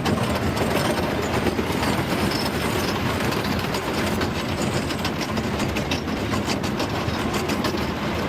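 Ghost Rider wooden roller coaster train running on its track: a steady, loud rumble with many fast, uneven clicks and clatters.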